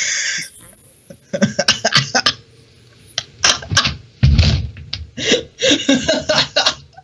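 A person laughing in irregular fits: breathy bursts of laughter, some of them voiced, with a low thud about four seconds in.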